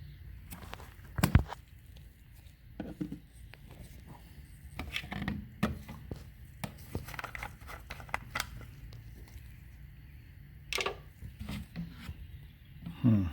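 Handling noises from someone working on a car: a sharp knock about a second in, then scattered clicks, knocks and rustling over a low steady hum.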